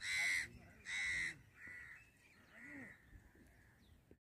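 Crows cawing: two loud, harsh caws in the first second and a half, then several fainter caws.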